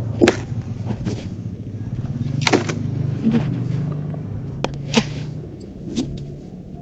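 A low, steady motor-like hum that slowly fades, with about five sharp knocks of hard objects spaced a second or two apart.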